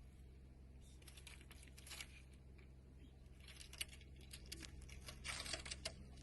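Faint irregular scratching and rustling clicks over a steady low electrical hum, growing busier near the end.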